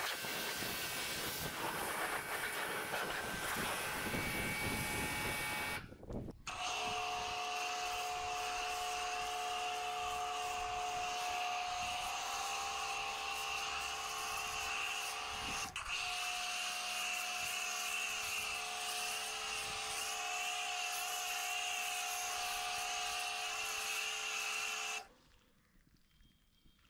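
High-pressure water jet hissing as it sprays the motorcycle. After a brief break, an electric pressure washer's motor whines steadily under the hiss of a foam cannon spraying snow foam, then cuts off suddenly near the end.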